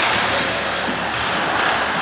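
Steady noise of an ice hockey game in play in a rink, a hiss that fits skates on the ice and the arena's general noise, with no single distinct hit.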